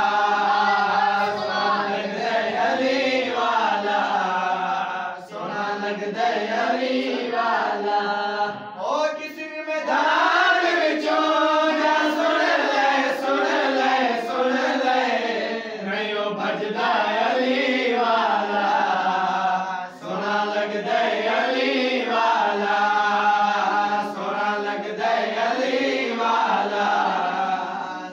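Young men chanting a qasida, an Urdu devotional poem, in unaccompanied voices. A melodic vocal line bends and glides over a steady, low held note.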